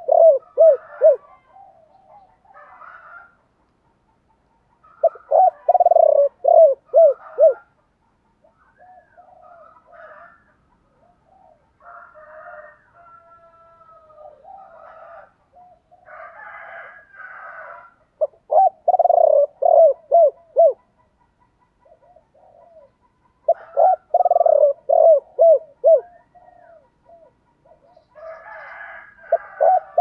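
Spotted dove cooing in the deep 'thổ' voice: about five bouts, each a run of five or six short, arched coos lasting two to three seconds. Softer, scattered calls fill the gaps between bouts.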